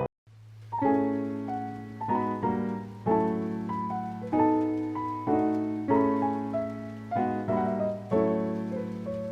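Background music: a slow piano piece, notes struck about once a second over a held low bass, starting after a brief gap at the very beginning.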